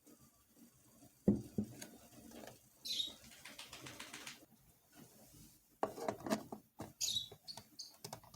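Scattered kitchen handling sounds: a sharp knock about a second in, light clatter about six seconds in, and brief high rustles.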